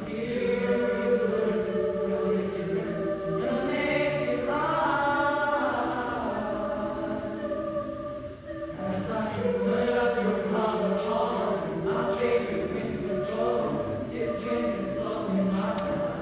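A mixed choir of boys and girls singing in several parts, holding long notes, with a brief drop in level about eight and a half seconds in before the singing resumes.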